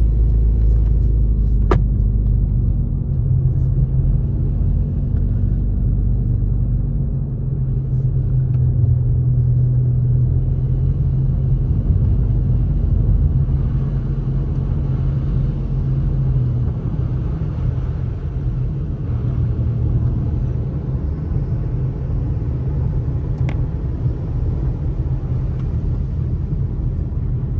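Steady low rumble of a car driving, heard from inside the cabin: engine and tyre noise on a wet, slushy road, with a few faint clicks.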